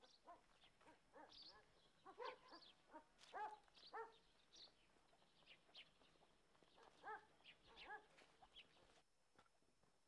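Faint dog barking and yelping, a string of short calls, some falling in pitch, that stops about nine seconds in.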